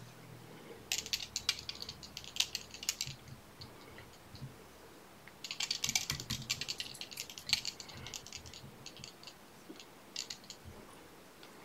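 Hands working materials on a fly-tying vise: crisp, light rattling and crackling in two spells, about a second in and again from about five and a half seconds, with a few stray ticks between.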